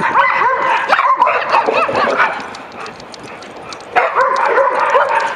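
A pack of dogs yipping and barking over one another, excited at play. The calls come in two bursts with a quieter lull in the middle.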